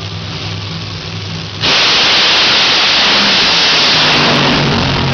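Nitro funny cars' supercharged V8 engines running at the starting line, then about a second and a half in going to full throttle on launch with a sudden, extremely loud roar that overloads the microphone. It stays at full force for about three seconds, then eases off a little as the cars run away downtrack.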